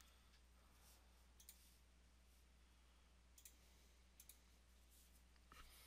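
Near silence, with a handful of faint computer mouse clicks scattered through.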